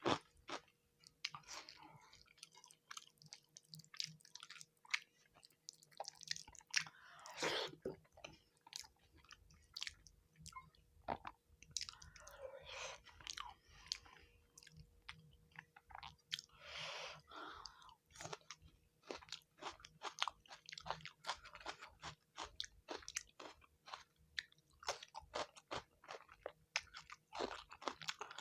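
Close-miked chewing of rice and fish curry: a dense, irregular run of quick mouth clicks and smacks, with a few longer noisy stretches between them.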